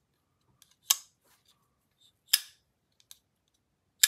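Brown Knives Cortex XL folding knife being flicked open and shut by its flipper tab: three sharp metallic snaps about a second and a half apart as the blade swings on its pivot, newly fitted with Skiff bearings and KPL Heavy lube, and locks into place, with faint clicks between.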